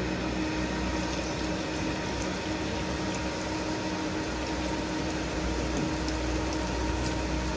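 Flour-coated chicken proventriculus (proben) deep-frying in hot oil: a steady sizzle and bubbling.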